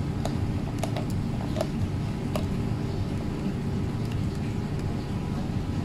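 A steady low hum of a running motor, with a few faint short clicks from small hand work on wire connectors.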